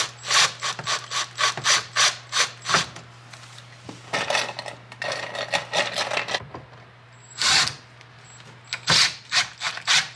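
Hand-tool work on the dash mount: short rasping, rubbing strokes, about three a second, in runs broken by pauses.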